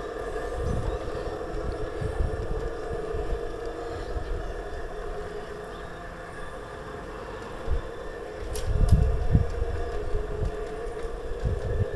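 Garden-railway model train running, giving a steady multi-pitched hum. Wind buffets the microphone in irregular low rumbles, strongest about nine seconds in, just after a single sharp click.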